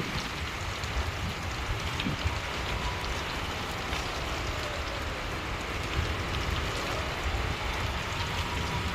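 Rain falling steadily, with a low rumble of wind on the microphone.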